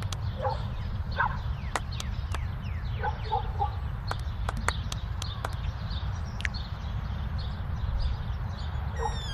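Wind rumbling on the microphone, with birds chirping now and then and a few sharp clicks.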